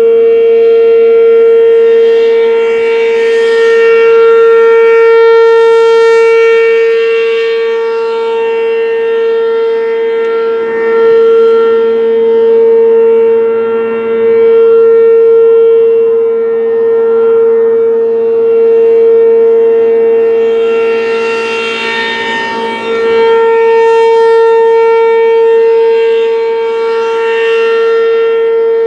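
ASC RM-127 outdoor warning siren sounding a steady tone during its scheduled test. The pitch holds constant while the loudness swells and fades every several seconds.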